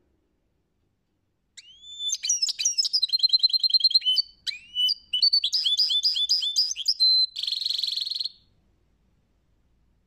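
European goldfinch singing. A phrase of quick twittering notes and rapid trills starts about a second and a half in. It ends in a harsh buzzy note lasting about a second.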